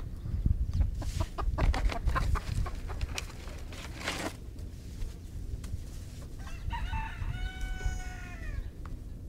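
Chickens clucking in short, quick calls, then a rooster crows once, one long call of about two seconds starting about two-thirds of the way in and falling off at the end.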